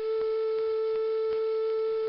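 Car horn sounding one steady, unbroken tone, with a few faint clicks.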